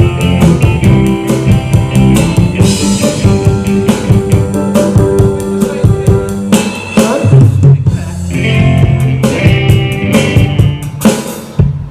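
Live rock band, with drum kit, bass and guitar, playing an instrumental passage at a sound check. The band stops on a final hit near the end.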